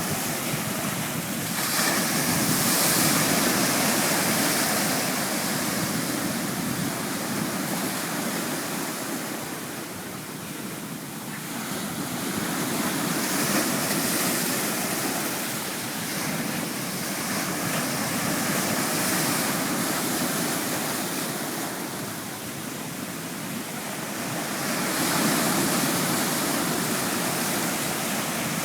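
Sea waves washing onto the shore, a continuous rush that swells louder and eases off again every several seconds.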